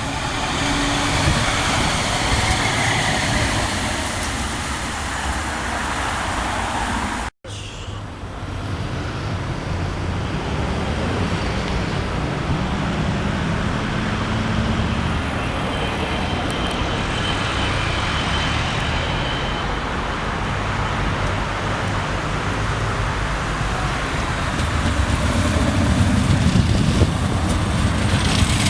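Croydon Tramlink tram running past, a steady rumble mixed with road traffic noise, with a faint whine rising slightly about halfway through. The sound cuts out for an instant about seven seconds in.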